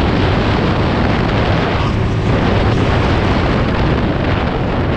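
Kawasaki KLX140 pit bike's single-cylinder four-stroke engine running steadily while being ridden, heavily buffeted by wind on the microphone.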